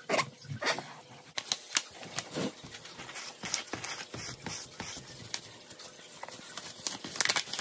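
A hand in a clear disposable plastic glove rubbing and handling a leather sneaker: irregular scuffs and crinkles, several a second, loudest in the first two seconds and again near the end.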